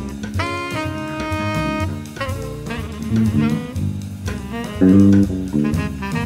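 Jazz music with a drum kit and a lead line that scoops up into a long held note about half a second in, with a four-string electric bass played fingerstyle along with it.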